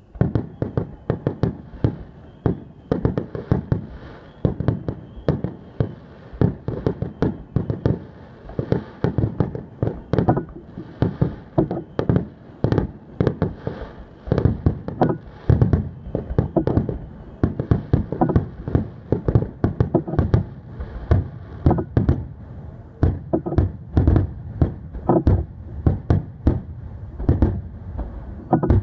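Aerial fireworks barrage: a rapid, unbroken string of shell bursts, each a sharp bang with a short echoing tail, packed closest together and loudest near the end.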